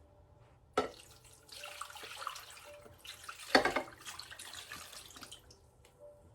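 Water running into a crock pot over frozen chicken breasts, with a sharp click about a second in and a louder knock about halfway through.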